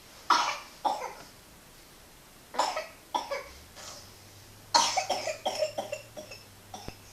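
Repeated coughing. There are two single coughs, then two more about two and a half seconds in and another near four seconds. Just under five seconds in comes a fast string of coughs.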